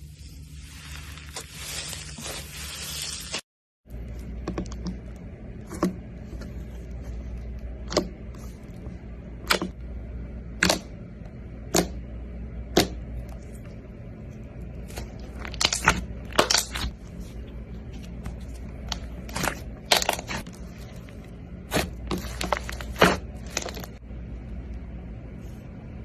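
Slime being squeezed and poked by hand, giving sharp, irregular clicks and pops over a low steady hum. The first few seconds are a hissy crackle, cut off suddenly.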